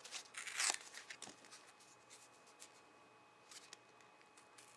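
Hands rustling a small piece of thin cardboard from a Hot Pocket sleeve: short crinkly rustles, loudest in the first second, then a few faint scratches.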